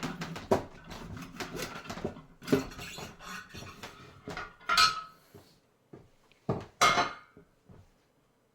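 Metal clanks, knocks and scrapes of steel tools against a manual tire changer and wheel rim as the old tire is worked off, with a few louder ringing clanks.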